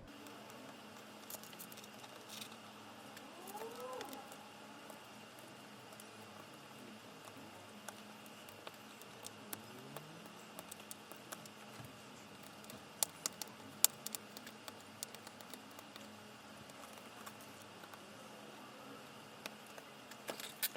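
Faint small clicks and scrapes of a tool working leftover adhesive tape off a Samsung Galaxy Note 5's frame, over a steady low hum. A few sharper clicks come about 13 seconds in, and a short rising-then-falling pitched sound about 4 seconds in.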